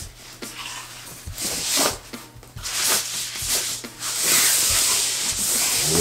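A thin white fabric dust bag rustling and rubbing as it is worked up and off a bass guitar. The sound comes in several bursts, the longest and loudest from about four seconds in.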